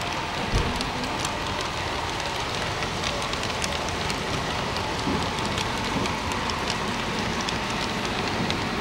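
HO-scale model train rolling along its track: a steady rushing noise with many small irregular clicks from the wheels over rail joints and turnouts, and one low thump about half a second in.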